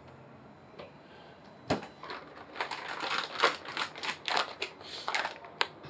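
Kitchen handling noises: one sharp knock, then a quick, irregular run of small clicks and rustles as food and utensils are handled at the stove.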